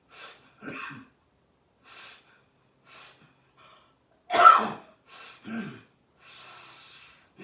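A man coughing and breathing hard in a string of short separate bursts, the loudest cough a little past halfway, with a longer hissing breath near the end.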